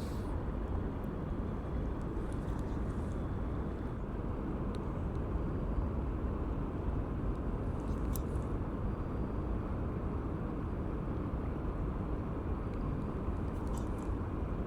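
Steady low rumble of outdoor background noise, with a few faint short ticks.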